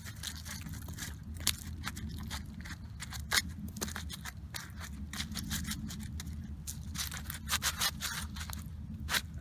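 Scattered sharp clicks and scrapes from handling an iced-up Ruger American 9mm pistol, its metal parts clicking and ice scraping against them. The louder snaps come about one and a half seconds in, about three and a half seconds in, and in a cluster near the end.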